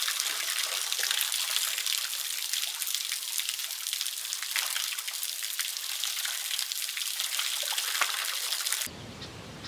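Water showering down from above and splashing into a shallow pool in a wooden box: a steady dense patter and splash. It cuts off suddenly near the end.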